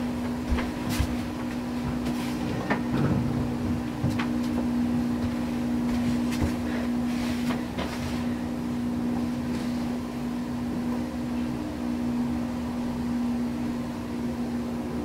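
A steady low hum, like a small motor or appliance running, with scattered light clicks and knocks over it; the hum cuts off near the end.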